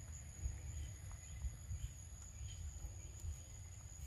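Outdoor ambience: a steady high-pitched insect drone, a few faint bird chirps and a low rumble underneath.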